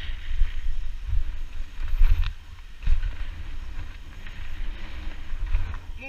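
Wind buffeting a helmet-mounted GoPro Hero 2's microphone while a mountain bike rolls fast down a dirt trail, a low rumble of tyres and bike rattle under it. A couple of knocks from the bike jolting over bumps come about two and three seconds in.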